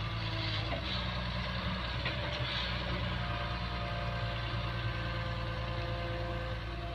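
Daewoo Solar 130W wheeled excavator's diesel engine running steadily as it raises its boom and swings the loaded bucket.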